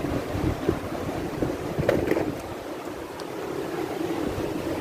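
Wind buffeting the microphone over a steady wash of shallow surf at the shore, with a few short clicks about two seconds in.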